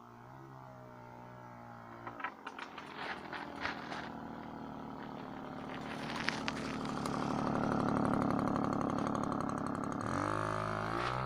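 Puch E50 two-stroke moped engine running after its rebuild, a few sharp clicks about two seconds in, then revving up and easing back before climbing again near the end.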